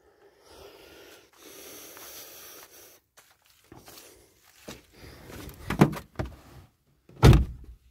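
Rustling and handling noises, then two loud thumps about a second and a half apart near the end: car doors being shut.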